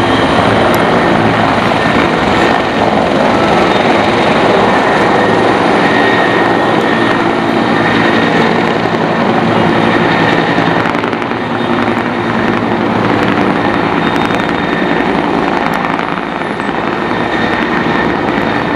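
Helicopter lifting off and flying away, a steady loud rotor and turbine-engine noise.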